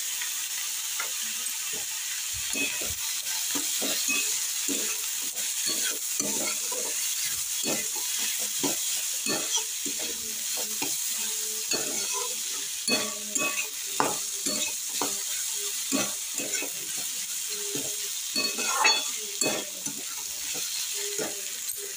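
Vegetables sizzling in hot oil in a metal kadai while a steel spatula stirs and tosses them, scraping and knocking against the pan a few times a second.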